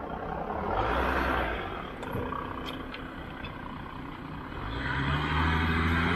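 City road traffic: car engines and tyre noise from passing vehicles. A second, louder swell begins about three-quarters of the way through, with an engine hum that rises in pitch.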